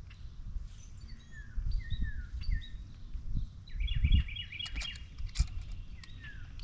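Songbirds chirping: repeated short, downslurred notes, with a quick run of five or six notes about four seconds in. Low rumbling and a few dull thumps run underneath.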